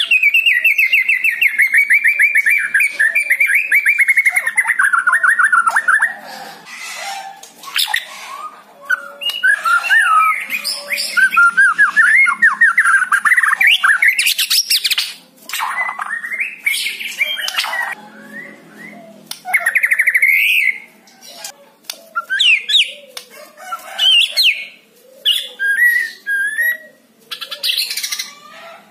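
White-rumped shama singing a loud, varied song. It opens with a long rapid trill falling in pitch, then continues as a string of short whistled phrases and rattles with brief pauses between them.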